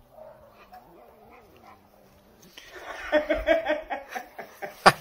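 Dog whining, faintly at first, then from about halfway in a louder run of short whines repeated several times a second.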